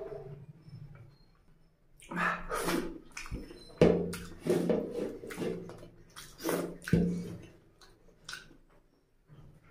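Wet squelching of fingers mashing and mixing rice with oily mutton curry gravy on a plate. It comes as a run of squishy bursts starting about two seconds in and dies away after about seven seconds.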